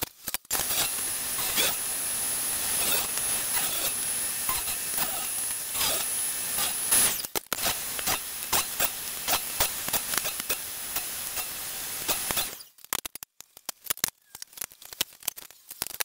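Table saw running and ripping pallet-wood boards, a steady high whine mixed with cutting noise, with a brief break about seven seconds in. About twelve seconds in it stops suddenly, and scattered light clicks and knocks follow.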